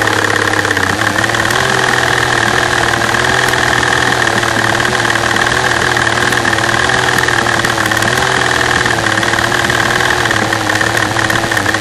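V12 engine running with a bad misfire, heard close up at the fuel rail, its pitch wavering unevenly. Over it a fast tapping from the fuel injectors, which is normal injector noise and not the fault.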